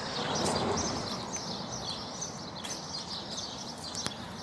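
Outdoor ambience: many small birds chirping continuously over a steady low rushing noise. The rushing swells briefly in the first second.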